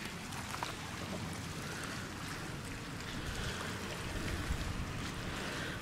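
Steady low rushing background noise, with a few faint clicks.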